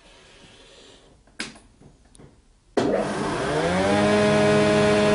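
A single knock, then about three seconds in a spindle moulder is switched on: its motor and cutter block start suddenly and run up to speed with a rising whine that levels off into a steady hum.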